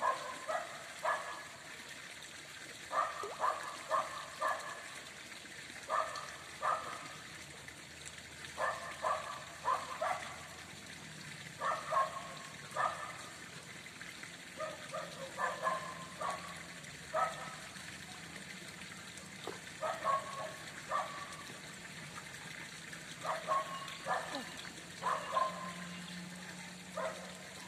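Short animal calls repeating in quick runs of two to four, a new run every second or two, over a faint steady background hiss.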